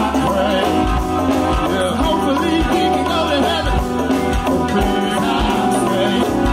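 Live band playing a song with a steady beat of low drum hits under sustained, wavering melodic lines.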